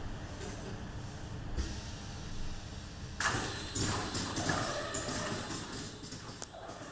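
A Schenk Spider carousel screen-printing machine running with a steady low hum. From about three seconds in there is a rapid, uneven run of mechanical clicks and clatter.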